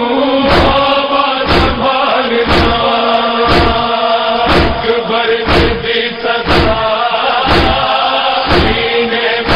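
Noha backing: a chorus holding a sustained chanted drone, kept in time by a sharp, heavy beat about once a second, the chest-beating (matam) that accompanies a noha.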